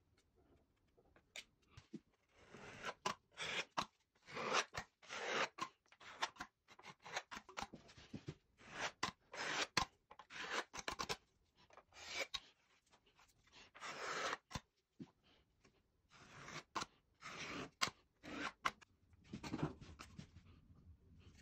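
Steel putty knife scraping over plaster moulding in many short, quick strokes, starting about two seconds in.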